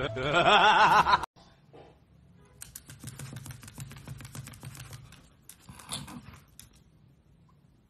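A loud, wavering pitched sound briefly at the start, then a dog's claws clicking and tapping rapidly on a hard tiled floor as it paws at the floor, for about four seconds.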